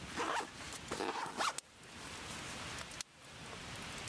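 Rustling as gear is handled, then a zipper pulled in two long, even strokes.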